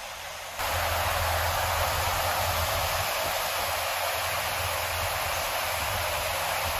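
A river's whitewater rapids rushing in a steady, even roar of water. It cuts in abruptly about half a second in, over a quieter steady hiss.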